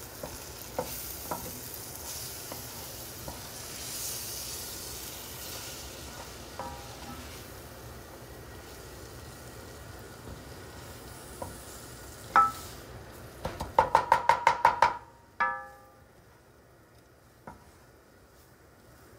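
Wooden spoon stirring flour into onions sizzling in butter and oil in an enamelled skillet, the start of a roux; the sizzle thins about halfway. A little past halfway comes a single ringing knock, then a quick run of about eight ringing knocks and one more.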